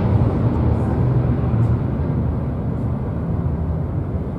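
Fokker 100 jet's two rear-mounted Rolls-Royce Tay turbofans at take-off thrust during the take-off roll: a loud, deep rumble that slowly fades as the jet speeds away down the runway.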